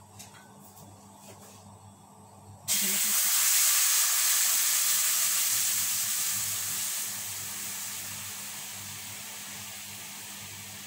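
A few faint clicks from a can of coconut milk being opened. Then, about three seconds in, coconut milk poured into a hot wok sets off a sudden loud sizzling hiss that slowly dies down.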